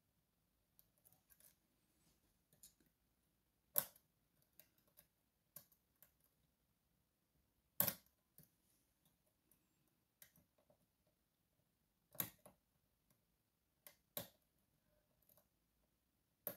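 Faint metal ticks and scrapes of a slider pick moving the sliders inside an Evva 3KS lock under a tension wrench. A handful of sharper clicks stand out among them.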